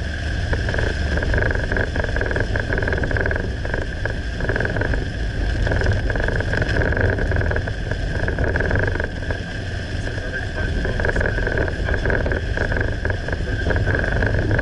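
Car driving along a highway, with steady engine and tyre noise and a constant high-pitched hum.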